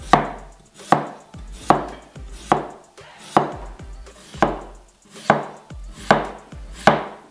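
Chef's knife slicing a peeled raw potato into thin slices, each cut ending in a sharp knock of the blade on a plastic cutting board, about nine even cuts at a little more than one a second.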